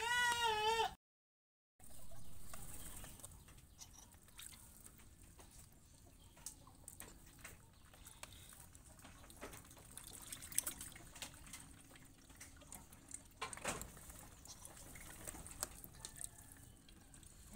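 Muscovy ducks and chickens feeding from basins of wet vegetable scraps: faint wet dabbling and pecking clicks, with occasional soft clucks. A brief wavering bleat-like call sounds at the very start.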